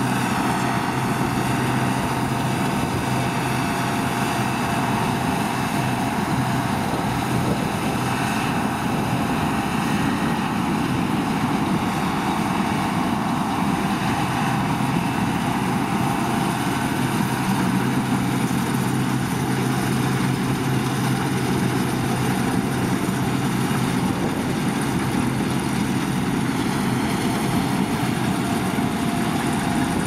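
Deutz-Fahr Topliner 4065 HTS combine harvester running steadily under load while harvesting barley, its engine and threshing machinery making an even, continuous hum.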